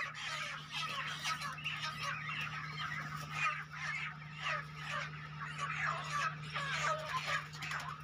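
A flock of broiler chickens squawking and calling over one another in a dense, continuous chorus of short cries as they are caught and crated for loading. A steady low hum runs underneath.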